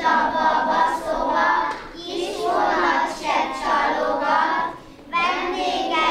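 A group of young kindergarten children singing together in unison, in phrases with short breaks between them.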